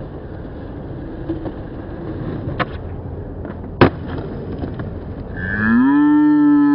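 Skateboard wheels rolling over rough concrete, with two sharp clacks of the board a little over a second apart, the second the louder. Near the end a person starts a long drawn-out shout that rises and then falls in pitch.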